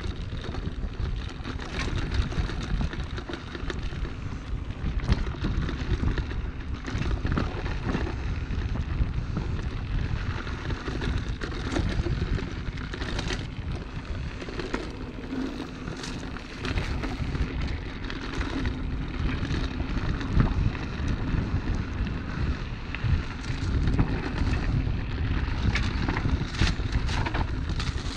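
Wind buffeting the microphone with a steady low rumble, broken by scattered sharp clicks and knocks.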